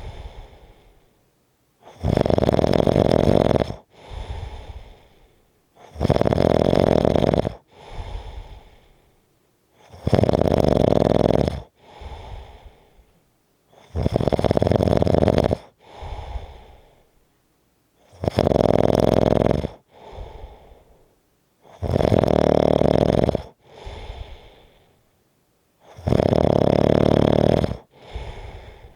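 A sleeping person snoring heavily in a slow, regular rhythm: a loud snore about every four seconds, each followed by a softer breath that fades out before the next.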